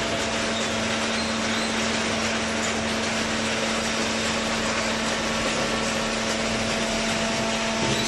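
Horizontal cardboard baler machine running: a steady hum holding one constant pitch under a loud, even mechanical noise.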